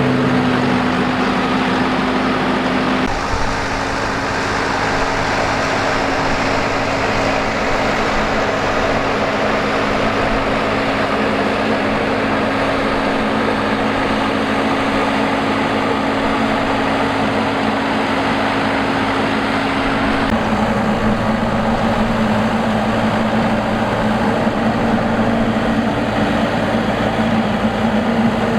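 Rice combine harvester's engine and machinery running steadily, a continuous mechanical drone whose note shifts twice, about three seconds in and again about twenty seconds in.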